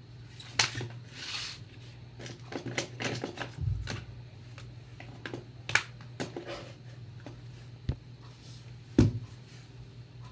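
Books and their packaging being handled: irregular paper rustles and light taps, with a couple of soft thumps, the loudest about nine seconds in, over a faint low hum.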